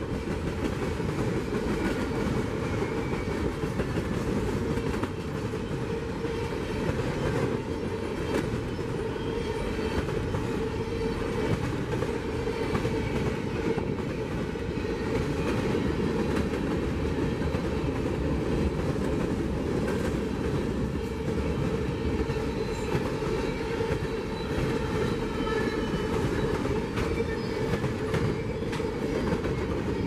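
Freight cars of a CSX train rolling past at speed: a steady rumble of steel wheels on rail with scattered clicks over the joints. Faint thin wheel squeals come and go.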